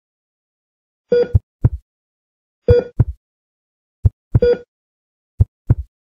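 Hospital heart monitor sound effect: a short electronic beep about every second and a half, three in all, mixed with low heartbeat thumps that mostly come in lub-dub pairs, with silence between beats.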